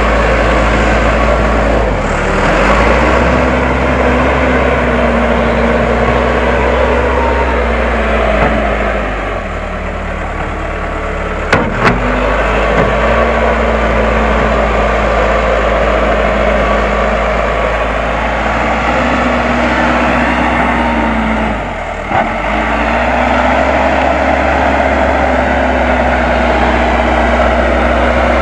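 Case 580M backhoe loader's diesel engine running steadily while working, its note sagging and recovering three times as it takes load. A sharp knock sounds once near the middle.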